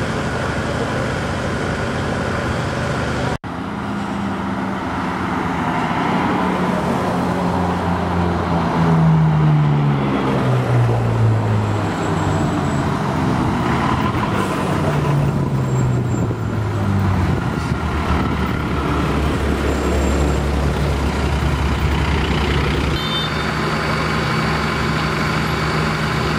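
Heavy emergency trucks on the move, their diesel engine notes falling in pitch several times as they go by, then a heavy truck engine running steadily.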